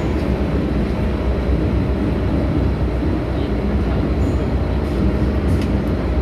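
MTR M-Train running through an underground tunnel, heard from inside the carriage as a steady, even rumble of wheels and motors.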